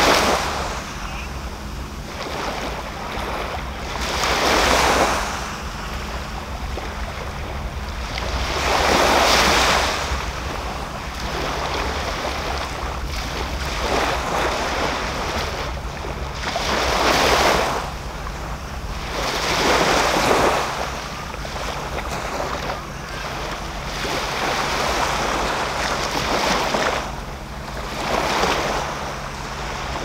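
Small waves breaking gently and washing up a sandy beach, the hiss of surf swelling and fading every few seconds over a steady low rumble.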